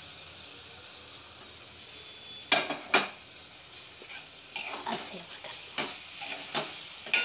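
Chicken pieces frying in masala in a metal kadhai, sizzling steadily while a steel spatula stirs and scrapes against the pan. Two sharp knocks of the spatula on the pan, about two and a half and three seconds in, are the loudest sounds, followed by quicker scraping strokes.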